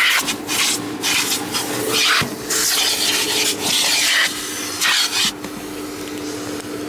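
Car-wash vacuum hose nozzle sucking at a car's floor carpet: a steady motor hum under a rushing, scraping air noise. The noise surges and drops as the nozzle is worked along the carpet, then settles to a steadier, quieter rush about five seconds in.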